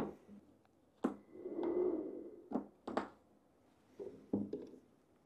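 A handful of sharp clicks and knocks from spring clamps and heavy cables being handled as a power inverter's leads are hooked onto battery terminals, with a short scraping rustle about a second in.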